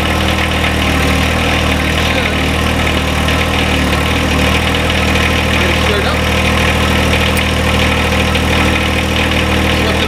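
John Deere 1025R compact tractor's three-cylinder diesel engine running steadily at idle.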